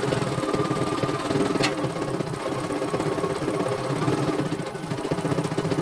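CNY E900 computerized embroidery machine stitching a test design: a fast, even needle rhythm over a steady motor tone. A single sharp click comes about one and a half seconds in.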